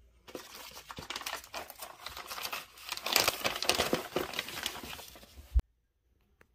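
Plastic courier mailer envelope crinkling and rustling as it is handled and opened, with the noise stopping abruptly near the end on a single sharp thump.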